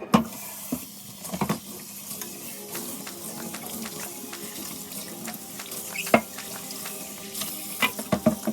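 Tap water running steadily into a kitchen sink, with a few sharp clinks and knocks of items being handled in it.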